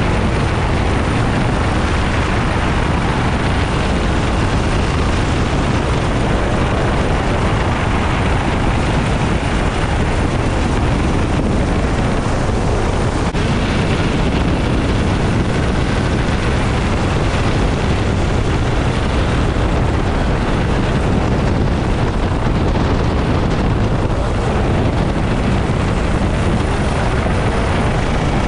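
Helicopter engine and rotor running steadily while hovering, loud and unbroken, heard from the open cabin door.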